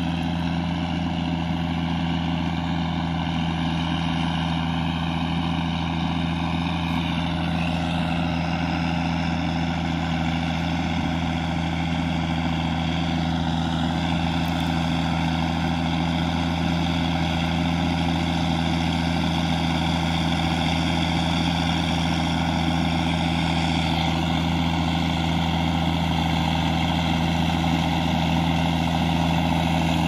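Ford TW25's straight-piped six-cylinder turbo diesel engine running steadily under load, pulling a four-furrow plough through the field.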